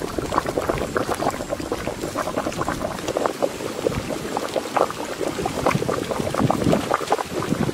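Fish curry boiling hard in a large open pot, a steady run of bubbling and popping as the liquid reduces and thickens.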